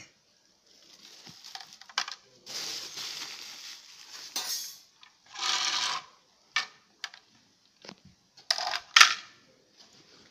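Packaging being handled: plastic wrap rustling and crinkling in stretches, with many sharp clicks and clinks of small hard objects, loudest in a quick cluster near the end.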